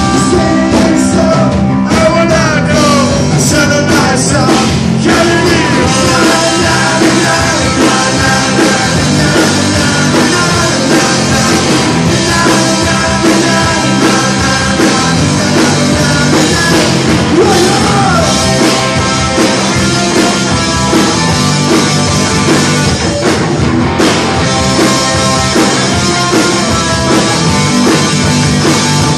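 Live rock band playing loudly: electric guitar, bass guitar and drums, with no break.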